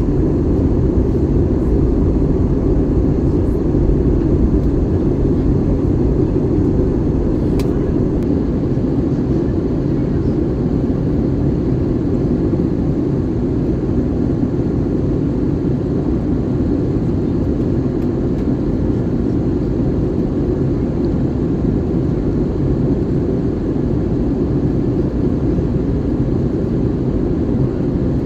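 Steady cabin noise of an Airbus A321neo on approach, heard from a window seat inside the cabin: a constant low drone of the engines and the airflow over the fuselage, unchanging in level.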